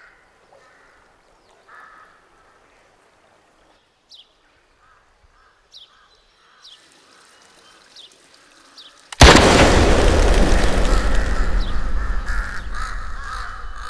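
Faint crows cawing and small birds chirping over a quiet outdoor ambience. About nine seconds in, a sudden loud, deep cinematic boom hits and slowly fades away.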